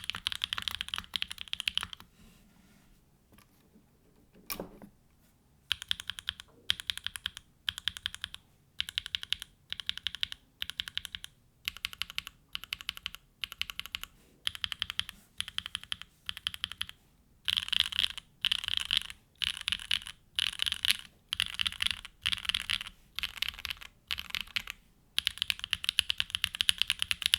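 Typing on a custom mechanical keyboard: a Mode Tempo with a carbon-fibre plate and plate foam, hand-lubed Gateron Pure Berry switches and GMK Tako keycaps. The keystrokes come in short bursts with pauses, with one lower thud in a quiet stretch a few seconds in, and turn into steady fast typing near the end.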